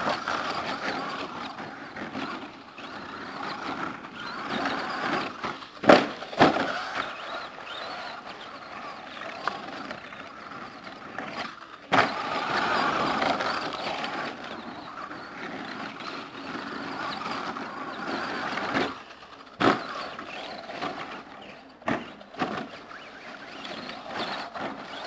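Electric RC short-course truck (Team Associated SC10 with a brushed Kyosho Le Mans 240ST motor) running on a dirt track, its motor and drivetrain swelling and fading with the throttle. There are a few sharp knocks along the way.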